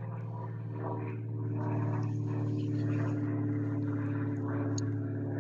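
Small propeller aircraft passing overhead, its engine running steadily and growing a little louder about two seconds in.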